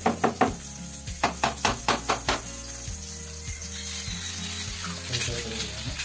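Food frying in a pan on a portable gas stove, a steady sizzle. Over it come sharp knocks: three right at the start, a run of about six a second in, and a few more near the end.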